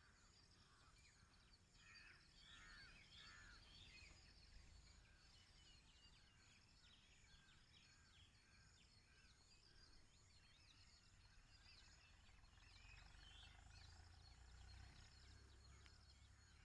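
Near silence, with faint birds chirping in the background.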